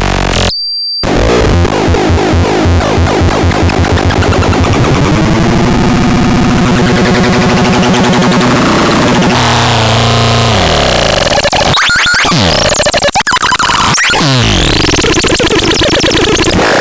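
Loud, chaotic electronic synthesizer sounds being demonstrated. Rapid pulsing tones give way to a sustained buzzy drone, then sweeping glides that rise and fall in pitch.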